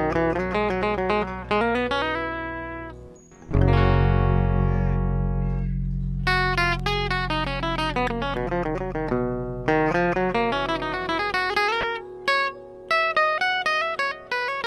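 Background instrumental music: fast runs of plucked guitar notes over a held low bass, with a brief break about three seconds in.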